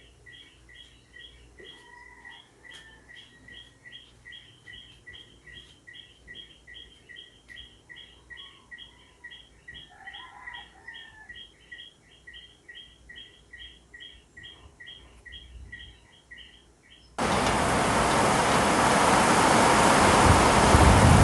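A small animal chirping steadily, about three even chirps a second, over a faint background. About 17 seconds in this cuts off abruptly into a loud, steady rushing noise.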